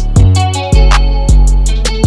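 Background music with a steady, heavy bass drum beat over deep bass.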